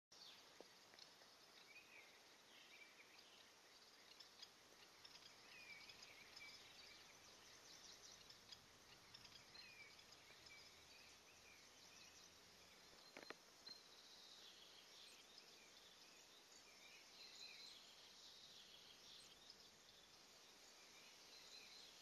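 Faint woodland birdsong: many small birds chirping and calling throughout, busier in the second half, with one sharp click about thirteen seconds in.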